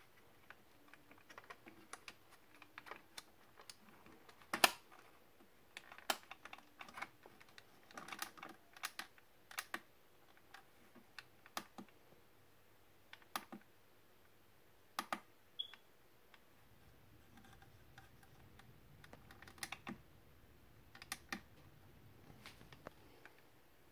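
Scattered small clicks and taps from fingers handling a 1/24-scale die-cast model SUV, working its opening tailgate and doors, with one louder click about four and a half seconds in.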